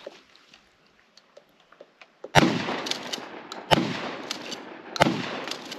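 Three gunshots, about a second and a quarter apart, after a couple of seconds of quiet. Each crack is followed by a long echo tail.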